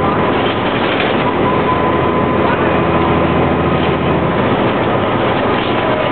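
Flxible Metro D transit bus under way, heard from inside the cabin: its diesel engine and drivetrain run steadily over road noise, with a thin whine above them. The low engine note eases off about four and a half seconds in.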